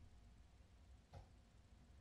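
Near silence: room tone with a low hum, and one faint, brief soft bump a little over a second in.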